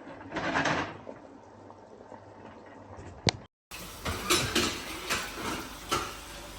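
Kitchen handling sounds: a short rustling burst, then a sharp click, and after an edit a run of knocks and clatter of cookware and utensils.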